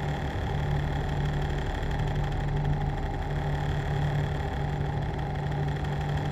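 A machine running steadily: a continuous low hum that swells and eases about once a second, with a fainter steady whine above it.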